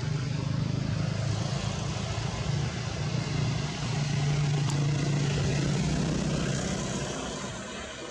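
A motor vehicle's engine running steadily with a low drone, a little louder around the middle and easing off near the end.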